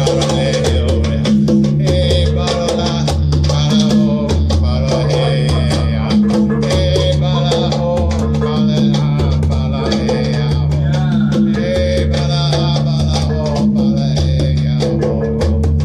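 Band music: drums and percussion playing a steady beat over a repeating bass line.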